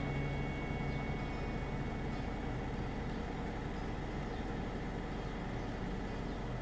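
A car-carrier truck's engine idling with a steady low rumble.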